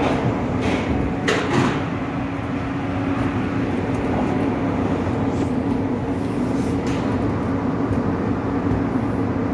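Steady machine drone with a constant pitched hum from the stud-welding power equipment running on the steel deck, with a couple of short sharp bursts about a second and a half in.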